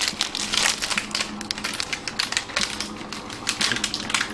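Dogs crunching and chewing dry biscuits: a fast, irregular run of crisp cracks.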